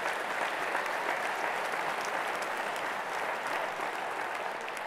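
Large audience applauding steadily, the clapping starting to die down at the end.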